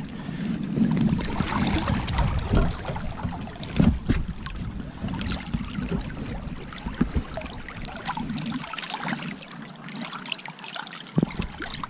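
Shallow creek water splashing and trickling as hands work in it while handling a small rainbow trout, with many irregular small splashes and knocks over the steady run of the stream. The heavier low rumble drops away a little after the middle.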